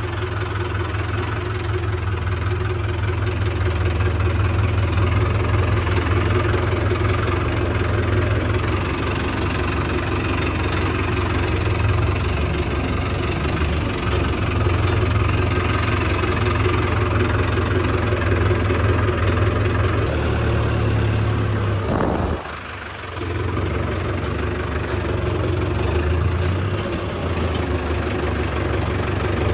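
Mahindra Arjun Novo 605 tractor's diesel engine running steadily as it is driven, heard from the driver's seat. The engine sound dips briefly about three-quarters of the way through, then picks up again.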